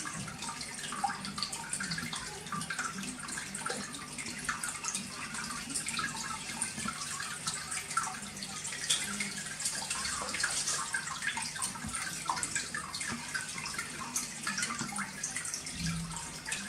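Water trickling and splashing steadily from a small waterfall into an aquarium tank, with a low steady hum beneath.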